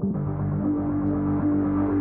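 Ambient electronic music with sustained low synth notes and a swelling sound that builds toward the end.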